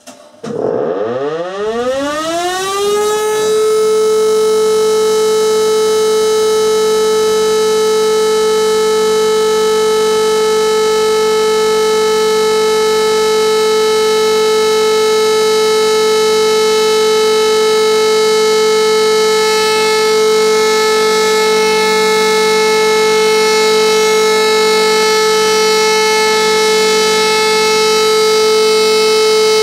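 Electric rotary civil-defence siren spinning up, its pitch rising over about three seconds, then holding one loud steady tone: the continuous all-clear (Entwarnung) signal.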